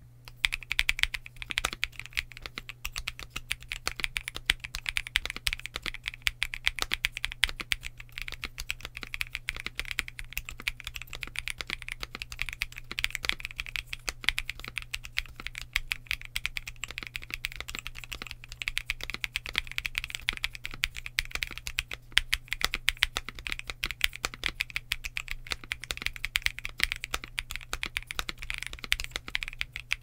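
Stock Leobog K81 Ice Crystal 75% mechanical keyboard with PC/PBT keycaps being typed on continuously, a dense stream of keystroke clacks, over a steady low hum.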